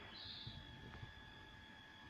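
A canary giving one short, faint high chirp about a quarter second in, otherwise near silence.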